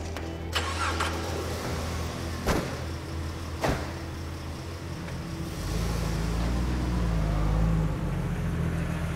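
A vehicle's engine running with a steady low drone, getting louder for a couple of seconds after about the halfway point as it pulls away. Three sharp knocks come in the first four seconds.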